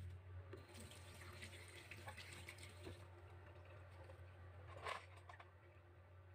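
Faint kitchen tap running into a stainless steel sink while a carrot is rinsed and rubbed under the stream, with small wet clicks and one sharper knock about five seconds in.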